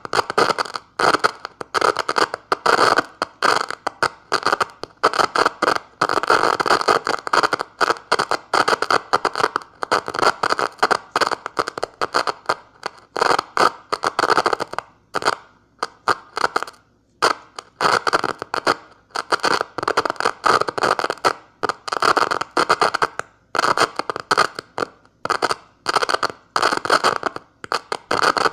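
Scratchy, crackling clicks in quick irregular bursts of a second or two with short pauses between, from a makeshift switch of two screwdrivers being tapped and scraped together as a Morse key.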